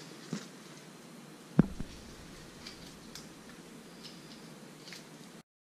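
Scattered light clicks and knocks of a knife being handled, with one sharp knock, the loudest sound, about a second and a half in. The sound cuts off abruptly near the end.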